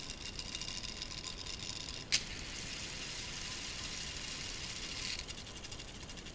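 K'nex two-speed gearbox driven by its small electric motor, plastic gears whirring and ticking steadily with a high whine. About two seconds in there is a single sharp click, and for the next three seconds the whirr is fuller and rougher before settling back.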